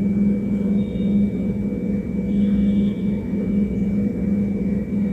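A steady low mechanical hum that swells and fades slightly.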